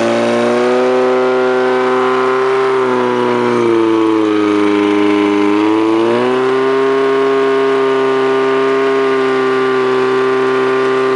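Portable fire pump's engine running flat out as it drives water to the attack hoses. Its pitch sags for about two seconds, a little under four seconds in, then climbs back and holds steady.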